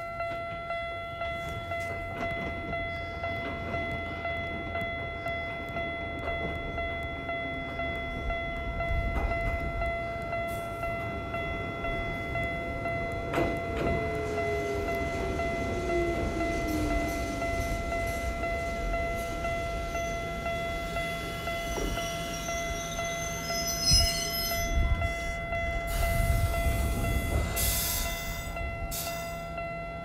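Japanese electronic level-crossing warning bell ringing in a steady, regular string of dings. Low rumble and noise build up toward the end as a train runs through.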